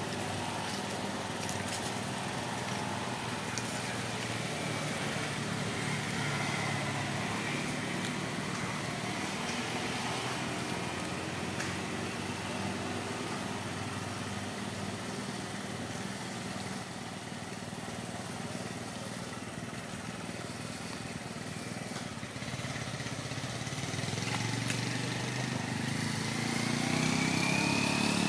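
A motor engine running, growing louder and rising in pitch near the end.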